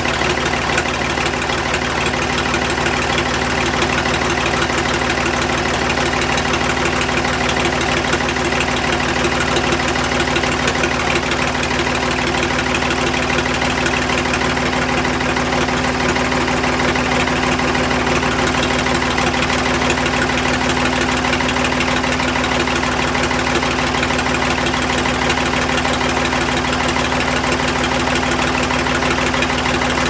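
Ford 555 backhoe's three-cylinder diesel engine running steadily, with no exhaust pipe fitted, so the raw exhaust blows straight out. The valves have just been re-lashed, and the valve train sounds good to the owner.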